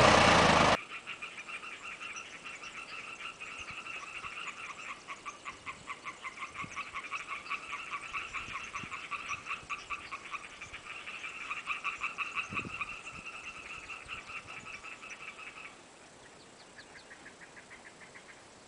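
A Massey Ferguson 35X tractor engine runs briefly and cuts off abruptly about a second in. After that, a chorus of frogs croaks in rapid, even pulses. The chorus drops away near the end, leaving a fainter, higher call.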